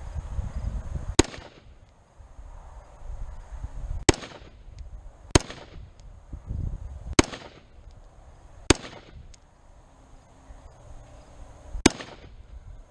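Springfield Saint Edge AR-15 carbine firing 5.56 rounds: six single shots of slow, aimed fire, spaced about one and a half to three seconds apart, each a sharp crack that dies away quickly.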